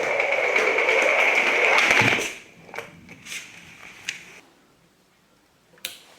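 A small motor running steadily with a high whine, cutting off about two seconds in, followed by a few scattered clicks and knocks.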